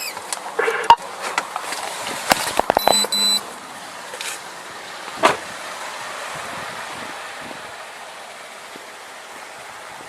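Body-camera audio at a roadside traffic stop. Scattered clicks and knocks and a short electronic beep about three seconds in give way to a steady hiss of passing-traffic and vehicle noise, with one sharp click a little past the middle.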